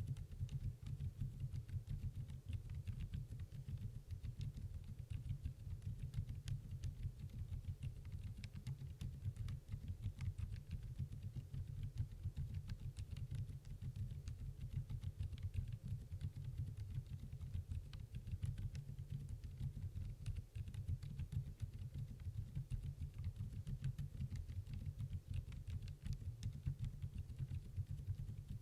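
Continuous typing on a Redbean The Better A1 mechanical keyboard with Outemu Lime silent switches: a steady stream of many quick, damped keystrokes.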